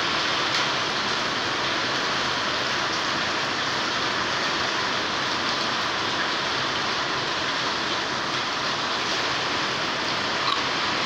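Heavy rain in a steady downpour: a dense, even hiss of drops splashing onto a waterlogged courtyard.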